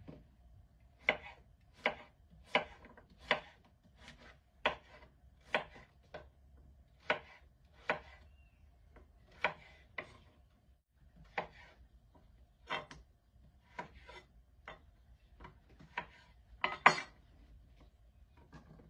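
Kitchen knife cutting through peeled chayote on a wooden cutting board: slow, separate chopping strokes about one a second, with a louder double knock near the end.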